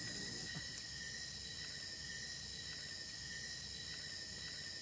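Night insect chorus, crickets or similar, a steady high-pitched shrill of several unbroken tones, faint under a low background hum.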